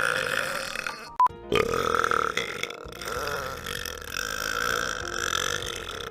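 A man's long, drawn-out burps, several clips cut together so the sound stops abruptly, over background music. A brief loud beep comes about a second in, at a cut.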